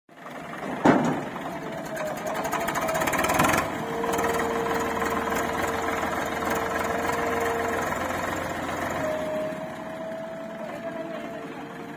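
Diesel engines of a JCB 3DX backhoe loader and a Swaraj 855 FE tractor running under load as the loader's arm pushes the stuck tractor, with a steady whine over the engine noise. A sharp loud knock comes about a second in, and a louder rapid clatter stops abruptly about three and a half seconds in.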